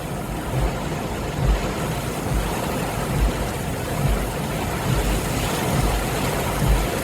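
Severe thunderstorm: torrential rain and strong wind make a steady hiss, with uneven low rumbles as gusts buffet the microphone.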